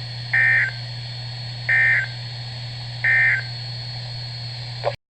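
Emergency Alert System end-of-message signal (SAME "NNNN"): three short bursts of screechy digital data tones, about a second and a half apart, closing a broadcast weather warning. A steady low hum runs underneath, and the audio cuts off abruptly near the end.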